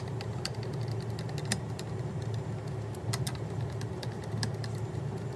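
Hand screwdriver turning a screw out of the base plate of a Look Pivot ski binding's heel piece, giving scattered light metal clicks. A steady low hum runs underneath.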